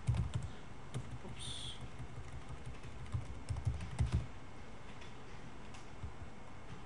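Computer keyboard typing: a run of key clicks for about four seconds, then it stops.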